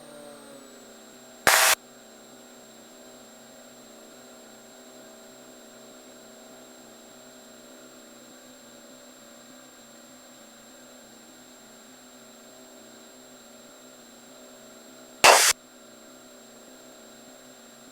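Faint, steady electrical hum with several steady tones, typical of a light aircraft's cockpit audio feed between transmissions. Two short, loud bursts of static break in, about a second and a half in and again near the end.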